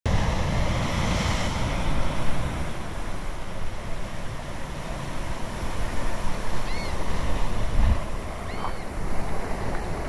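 Ocean surf breaking and washing up a sandy beach, a steady hiss with a low rumble, one wave surging loudest about two seconds in. Two short high chirps come near the end.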